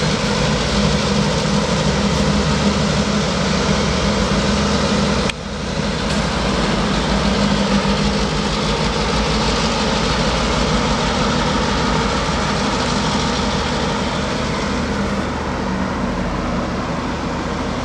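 EMD F-unit diesel locomotives hauling a passenger train, their engines running and wheels rolling on the rails as the train moves away. The steady rumble eases slightly near the end.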